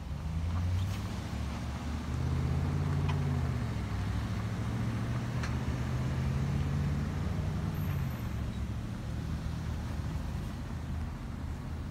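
Motor vehicle engine running with a steady low hum that rises slightly in pitch about two seconds in and eases off near the end, with a few faint sharp ticks over it.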